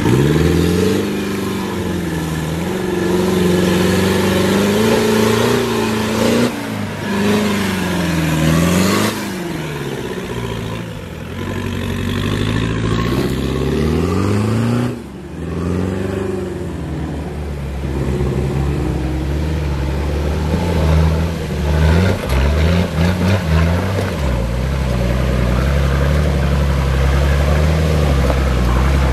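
Off-road 4x4 engines labouring up a rocky track, revs rising and falling repeatedly. From about the last five seconds the lead Nissan Patrol's engine is close and runs lower and steadier.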